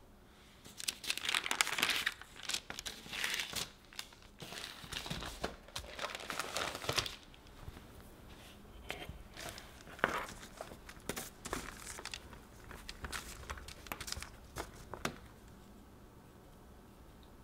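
Parchment paper crinkling and rustling in loud, dense bursts over the first several seconds, as rolled pie dough is handled on it. After that come softer, scattered rustles and light taps as the dough is laid into the fluted metal tart pan.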